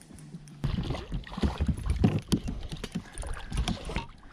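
Irregular low knocks and thumps on a fishing boat's hull and deck as a small bass is brought alongside, after a steady low hum that cuts off about half a second in.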